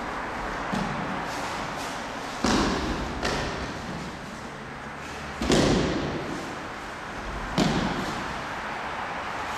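Bodies landing on tatami mats as partners are thrown and take breakfalls: a few heavy thuds echoing in a large hall, the loudest about halfway through, with lighter knocks between them.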